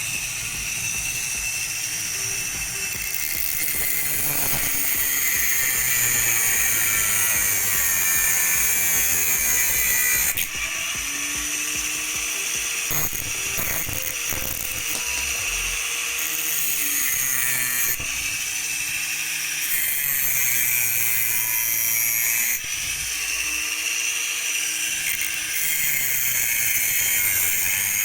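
Homemade mini grinder driven by a 12 V 775 DC motor running, a high whine with a hissing edge that changes several times.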